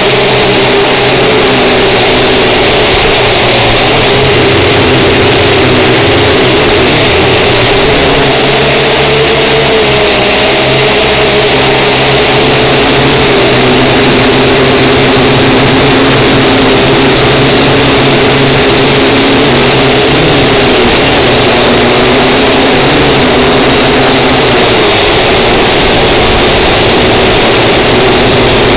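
Small toy-grade quadcopter drone's electric motors and propellers buzzing loudly and steadily, heard through the drone's own onboard camera. The pitch wavers up and down as the drone hovers and manoeuvres.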